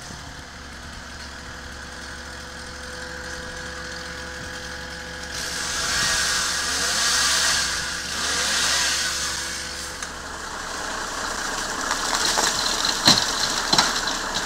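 Diesel engine of a Magirus turntable ladder truck running steadily to drive the ladder's hydraulics. A rushing noise swells and fades twice around the middle, and a few sharp cracks and knocks come near the end as snow and ice fall from the trees.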